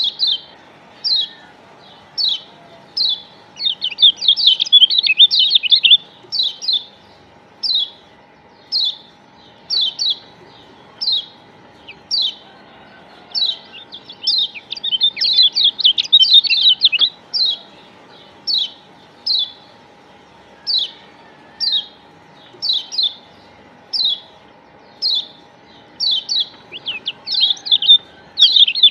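Lombok yellow white-eye (kecial kuning, a Zosterops white-eye) calling: short, high chirps about once a second, broken three times by a couple of seconds of fast, chattering trills. It is a lure recording (pancingan) meant to set kept white-eyes calling.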